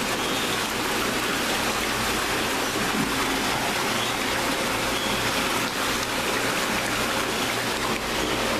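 Steady rushing and splashing water at a koi pond, with a crowd of koi churning the surface as they jostle for food pellets.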